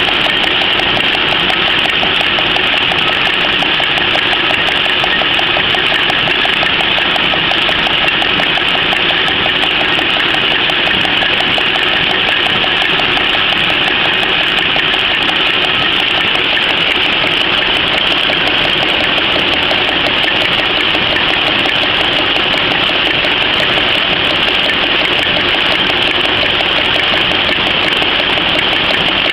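PCMC 23 cm napkin machine running: a loud, steady, rapid mechanical clatter that never lets up.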